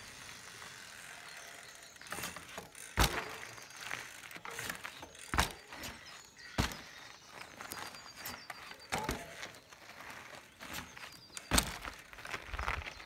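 Mountain bike tyres rolling and crunching over a dirt and gravel driveway, broken by several sharp thuds as the wheels land from bunny hops; the loudest comes near the end.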